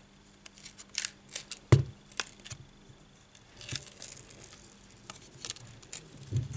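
Metal pry tool clicking and scraping against a smartphone's frame and glass as the heat-softened display module is pried loose. A run of sharp clicks, the loudest a knock just under two seconds in, then a short scrape about four seconds in and a few more clicks.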